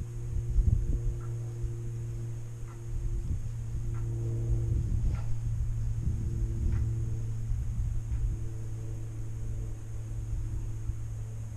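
Wind rumbling and buffeting on the microphone over a steady low hum, with a few faint short chirps now and then.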